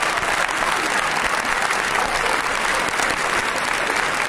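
Live theatre audience applauding, a steady dense patter of many hands clapping.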